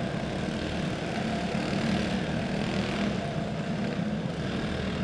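Small single-cylinder clone four-stroke racing kart engines running steadily at low speed, with no revving.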